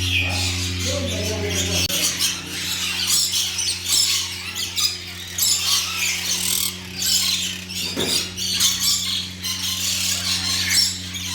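Many small birds chirping and chattering at once, a busy overlapping mix of short high calls, over a steady low hum that partly drops away about two seconds in.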